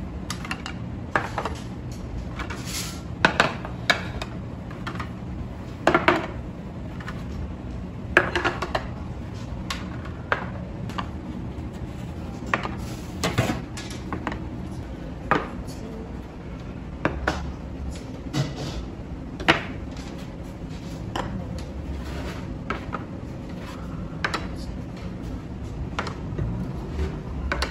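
Small ceramic side-dish plates being set down one after another on a table, giving irregular sharp clinks and knocks a second or so apart, over a steady low background hum.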